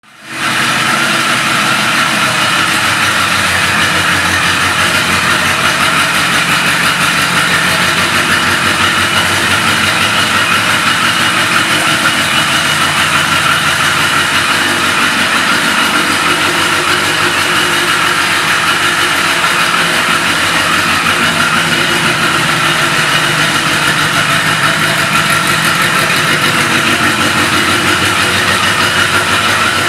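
1982 Yamaha Maxim 650's air-cooled inline-four engine idling steadily.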